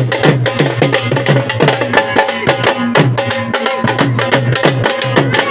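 Two dhol drums beaten with sticks in a fast, driving rhythm of many strikes a second, their heads ringing between strokes.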